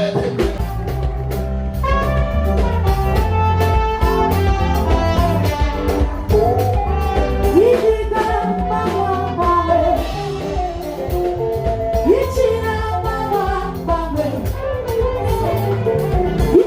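Music with singing over a band, with a strong bass line and a steady beat.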